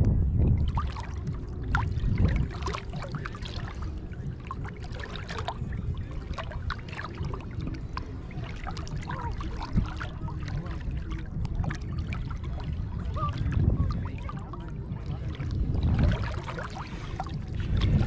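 Shallow seawater lapping and splashing right at the microphone, with many small trickling and dripping sounds over a low rumble that swells near the start and again near the end.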